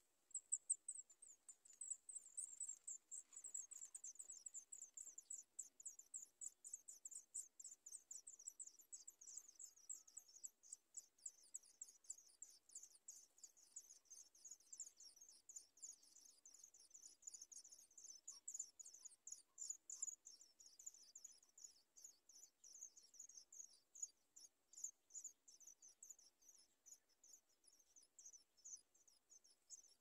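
Nestling songbirds begging from the nest: rapid, thin, high-pitched cheeps, several a second, faint.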